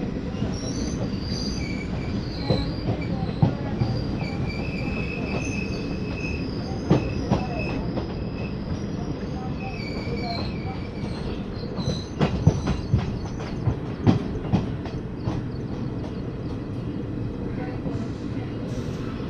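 Passenger train coach running, heard from its open doorway: a steady rumble of wheels on rail, with a high-pitched wheel squeal through the first half. Irregular sharp clacks come over rail joints, bunched together about two-thirds of the way through.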